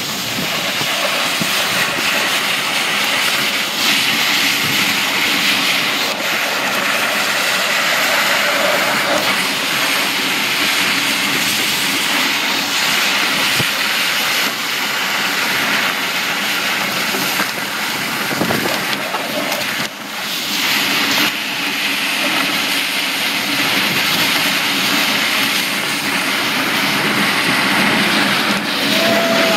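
Plastic kayak hull dragging over a concrete road as it is towed, a steady rough scraping hiss, mixed with the towing vehicle running and wind.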